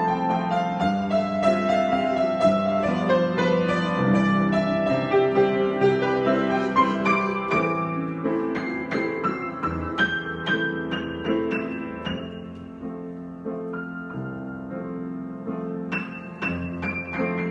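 Solo piano improvisation: flowing single notes over held chords, growing softer and sparser past the middle, then fuller again near the end.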